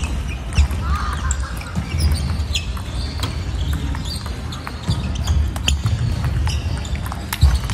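Table tennis rally: the celluloid-type ball clicking off rubber paddles and the table in a back-and-forth exchange against a chopping defender, with sneakers squeaking briefly on the hardwood floor.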